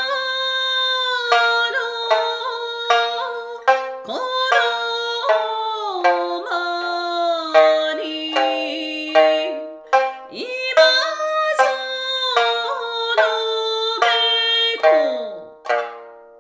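A woman sings a slow Japanese song in long held notes that slide between pitches, accompanying herself on an Okinawan sanshin whose plucked notes sound throughout. Her voice stops near the end, leaving the sanshin playing alone.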